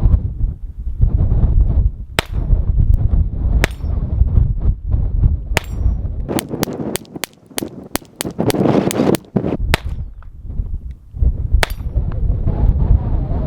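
Taurus TX22 .22 LR pistol firing: a few spaced shots, then a quick string of about a dozen over some three seconds, then one last shot, with steel target plates clanging. Wind buffets the microphone throughout.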